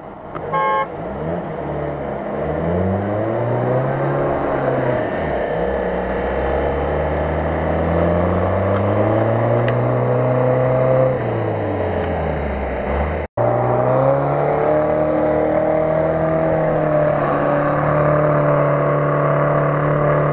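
Off-road 4x4 engine revving hard, rising and falling again and again as a vehicle stuck in boggy ground tries to pull free. The sound drops out for an instant about two-thirds of the way through.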